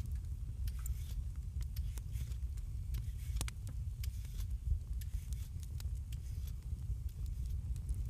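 Wood fire crackling in a fireplace: irregular small pops and snaps over a low, steady rumble.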